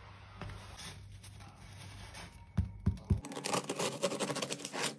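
A serrated bread knife sawing through the crisp crust of a freshly baked sourdough loaf: a fast crackling crunch over the last two seconds. Just before it, two dull knocks.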